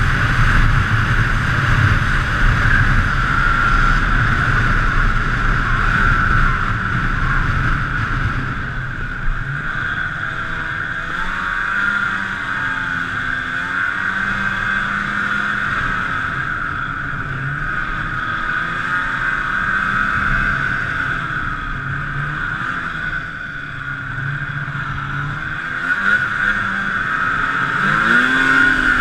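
Snowmobile engine running at speed, its pitch rising and falling as the throttle changes, under a steady high whine.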